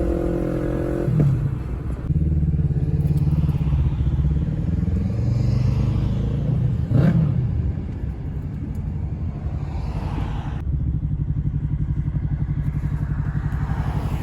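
Motorcycle engine running steadily while under way, with a short sharp event about seven seconds in.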